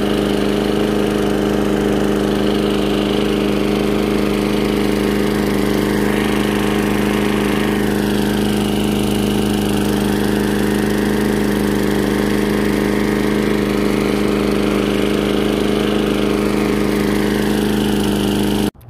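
Toro walk-behind push lawnmower's engine running steadily while mowing grass, loud and even in pitch; it cuts off abruptly just before the end.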